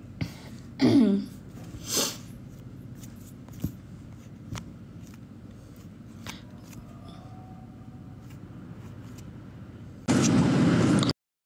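A short throat-clearing sound close to the microphone, falling in pitch, then a noisy breath, with a few light clicks after it. Near the end, about a second of loud noise cuts off abruptly into dead silence.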